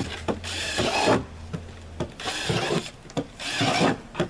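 Cordless drill boring holes through the wall of a black plastic sump pit basin: the bit grinds and rasps through the plastic in about three short bursts. The basin is being perforated so water can seep in and out and the pit won't float up.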